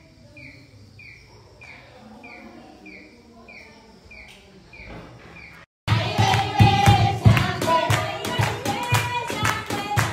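A small bird chirping over and over, a short falling note about twice a second. A bit over halfway a sudden cut brings a group singing a praise song with steady handclapping.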